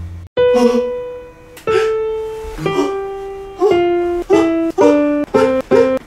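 Single plucked-string notes, like a guitar or ukulele, each struck sharply and left to ring. They come slowly at first, then about two a second from the middle on, stepping up and down in pitch like a tune. They are dubbed in as the sound of pats on a person's body.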